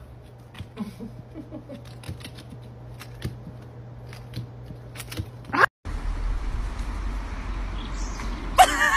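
Faint scattered clicks and small sounds over a low hum. About six seconds in this gives way to wind rumbling on an outdoor microphone, and near the end a quick run of high, wavering notes comes in.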